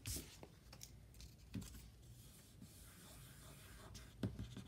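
Faint rustle of paper handling and fingertips rubbing a paper sticker down onto a sheet of paper, with a few soft taps, the clearest at the start and about four seconds in.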